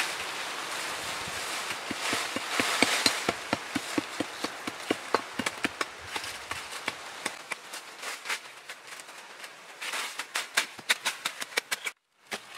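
Many sharp knocks and taps in quick, uneven succession over a steady hiss. They thin out in the middle, come thick again near the end, and break off in a brief silence.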